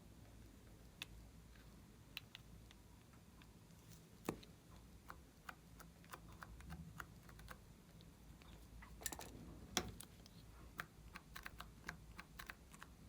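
Glossy slime being worked by hand, giving faint, irregular small clicks and pops, with a denser run of them a little past halfway.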